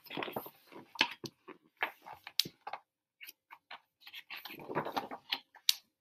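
Pages of a large picture book being flipped and handled: a run of short paper rustles, flaps and soft taps. They come thickest just after the start and again about four to five seconds in.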